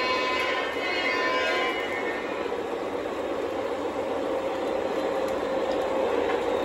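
O gauge model diesel locomotive running on three-rail track, its onboard sound system blowing the horn for the first couple of seconds, then a steady running rumble.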